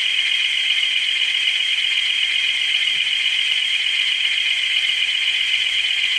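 Graham Farish N gauge Class 20 model locomotive's DCC sound decoder, with Howes sound, playing a recorded Class 20 diesel engine running, through the model's tiny speaker. It is a thin, steady drone with no deep bass.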